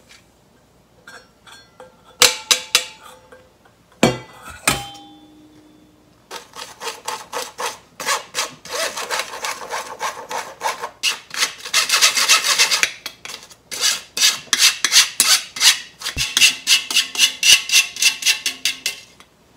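A metal spoon scraping and rubbing flour and ground hojicha through a fine stainless-steel mesh sieve in quick, repeated strokes, starting about six seconds in. Before that, a few knocks of metal on the sieve as the flour is tipped in.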